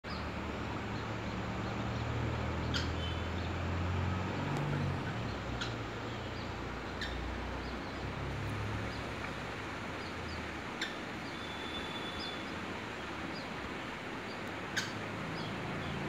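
Scattered short, high chirps and peeps from white-breasted waterhens (dahuk) and their chicks, with a few sharper chip notes, the loudest two about eleven and fifteen seconds in, and one brief held whistle near the middle. A low rumble runs underneath, heavier in the first half.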